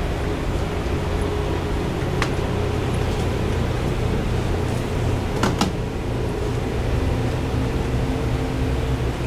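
Steady low droning hum with hiss and a faint steady tone. A sharp click about two seconds in and a louder double click about five and a half seconds in.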